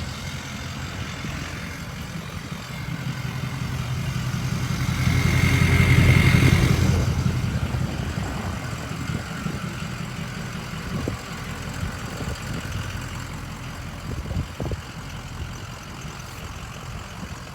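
Ford 6.0L Power Stroke V8 diesel engine running, swelling louder for a few seconds in the middle with a high whistle, then easing back to a steady run.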